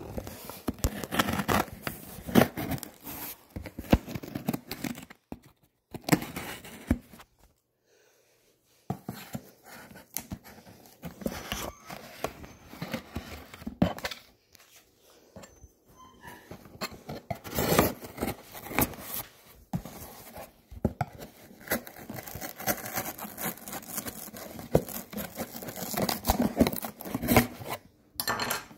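Packing tape on a cardboard shipping box being cut and torn open: irregular scraping, slitting and tearing strokes, with a couple of short pauses.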